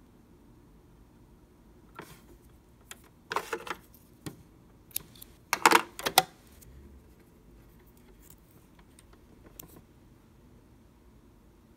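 Scattered light clicks and taps of fingers handling a sewing machine while threading its needle. They come in short clusters, the loudest about halfway through.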